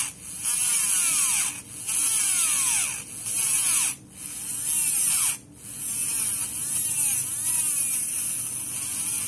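Small Hyper Dash hobby motor spinning a plastic Mini 4WD propeller-shaft gear at a high whine while a metal file rasps against the gear, trimming its underside to a point. The sound breaks off briefly a few times, most clearly about four and five and a half seconds in.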